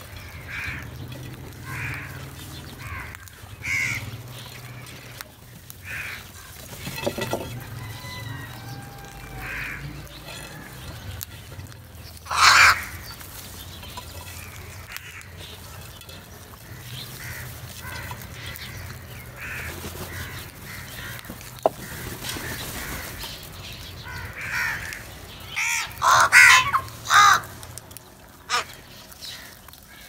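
A flock of house crows cawing while they feed, with short calls scattered throughout; one loud caw comes near the middle and a burst of loud caws near the end.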